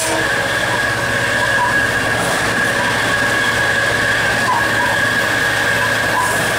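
EMD GT36HCW diesel-electric locomotive heard from the cab while running at speed. Its engine and the wheels on the rails make a steady rumble, with a steady high-pitched whine over it.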